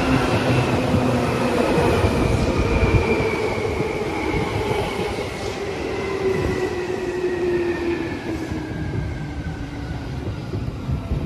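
Electric Seibu commuter train pulling into the station and slowing to a stop, with rail and wheel noise. Its motors whine in several tones that fall steadily in pitch as it brakes, and the sound fades gradually.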